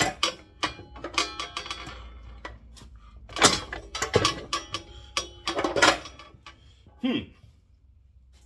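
Metal parts and tools clanking and knocking in quick, irregular strikes, two of them louder, about three and a half and six seconds in, as a torque converter and transmission are fitted to an engine.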